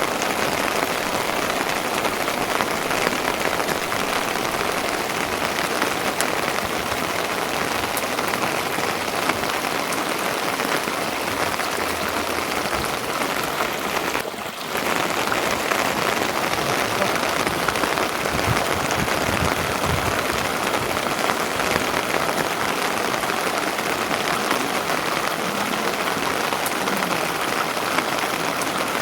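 Steady rain falling, an even hiss of drops, with a brief drop in level about halfway through.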